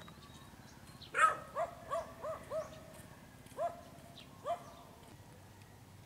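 A dog barking: a quick run of five short barks, the first the loudest, then two more single barks spaced about a second apart.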